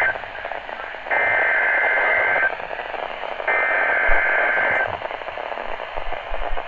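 Emergency Alert System (SAME) data header on NOAA Weather Radio: the end of one burst, then two more bursts of shrill two-tone digital data, each about a second and a half long, with radio static hiss between them. It is the coded header that announces an alert, here ahead of a severe thunderstorm watch.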